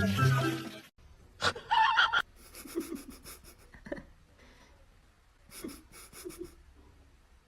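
Music cuts off about a second in, followed by quick, breathy panting in two short runs.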